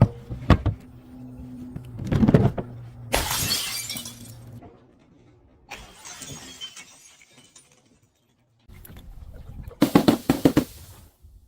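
Glass bottle being broken and crushed: several separate cracks and crunches, the loudest a long shattering spray about three seconds in, and a quick run of crunches near the end.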